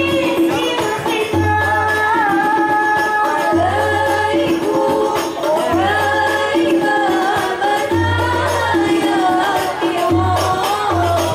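Hadroh ensemble performing: female voices singing a gliding melody over frame-drum (rebana) percussion, with a deep low note sounding about every two seconds.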